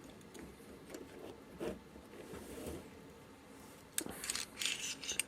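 Small ground steel parallels being handled: a faint tap, then a quick cluster of light metal clicks and clinks near the end as pieces are picked up and set down.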